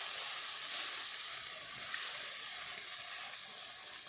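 Egg roll filling sizzling in a hot frying pan: a loud hiss that comes on suddenly as something hits the pan and slowly dies down.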